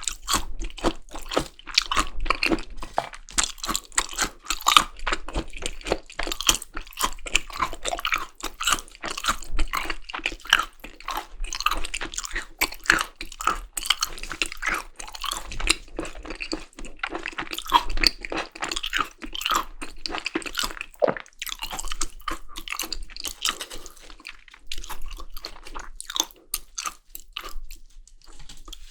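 Close-miked chewing of yukhoe, Korean seasoned raw beef tartare: a dense, irregular run of wet mouth clicks, smacks and crunches. The sounds thin out a little near the end.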